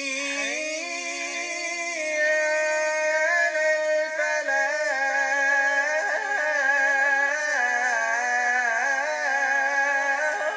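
Male muezzin chanting the adhan (Islamic call to prayer) in the Medina style, one long melismatic phrase held with wavering ornaments.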